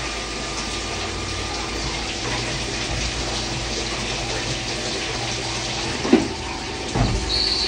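Cutting oil gushing and splashing from the coolant lines over the tooling of a Ganesh CB-32M Swiss-style CNC lathe, over the steady hum of the running machine. A short sharp knock comes about six seconds in, and a low thud about a second later.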